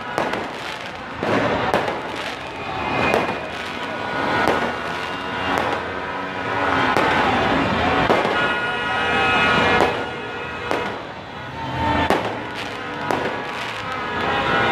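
Fireworks and firecrackers going off in a rapid, irregular string of bangs and crackles. Several held high tones join in about halfway through.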